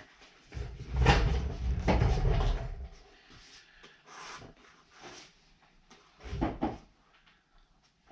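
Handling noise: knocks, bumps and rubbing as the camera is picked up and repositioned, loudest from about a second in to about three seconds, with a single short knock past the six-second mark.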